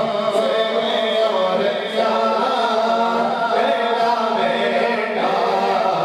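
Male voice reciting a naat unaccompanied, in long held and slowly wavering notes, possibly with other voices layered beneath.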